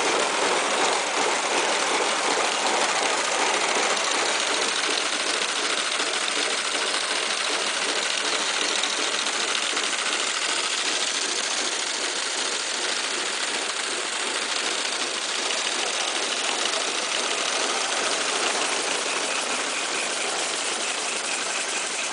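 Model stationary steam engines running on compressed air: a steady, fast mechanical clatter of many small strokes with hissing exhaust.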